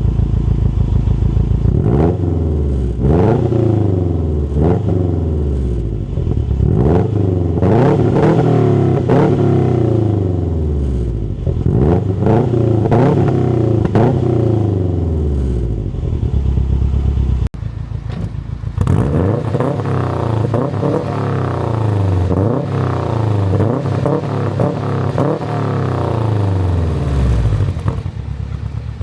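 Subaru WRX STI's flat-four engine free-revved through a factory performance muffler: repeated quick throttle blips, each a rising then falling note, about one a second, with a short break about two-thirds of the way in before the revving resumes.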